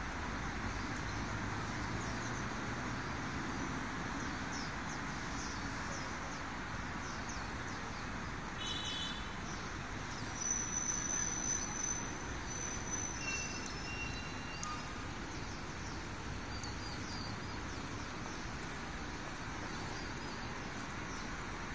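Steady outdoor background noise with scattered high bird chirps, and a louder high call lasting a second or two about ten seconds in.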